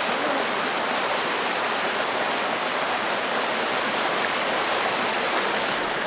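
Steady rush of a mountain creek's flowing water.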